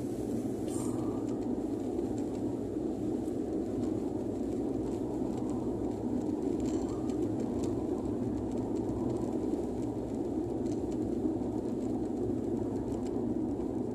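Steady drone of a car driving at cruising speed on a paved highway, tyre and engine noise running evenly with a low rumble.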